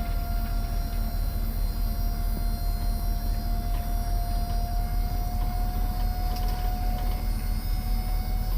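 An engine running steadily, with a low rumble and a thin steady whine over it.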